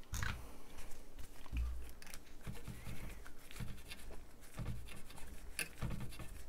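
Irregular light clicks and scratching of small hand tools being handled and scraped at a workbench, with a few soft low knocks.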